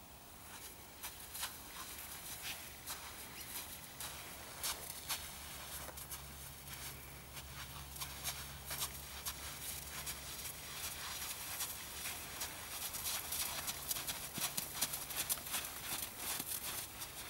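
Horse's hooves and a person's boots stepping on arena sand, a string of short crunching steps that grows busier near the end. A low steady hum runs underneath for several seconds in the middle.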